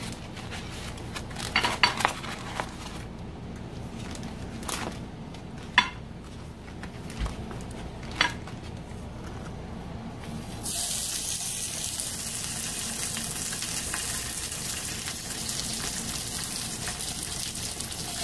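A few sharp clicks of metal tongs against the pan, then, about ten seconds in, a sudden steady sizzle as smoked mackerel pike (tinapa) are laid into a little hot oil in a frying pan.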